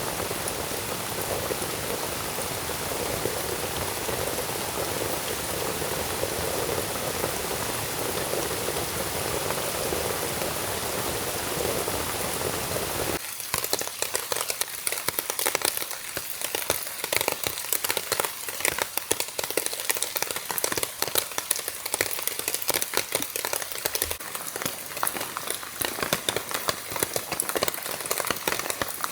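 Rain falling: a steady, even hiss at first, then, about 13 seconds in, an abrupt change to a closer, sharper, irregular crackle of drops.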